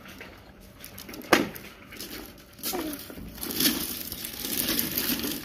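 Hard plastic ride-on toy car handled by a child: one sharp clack a little over a second in, then plastic rattling and scraping.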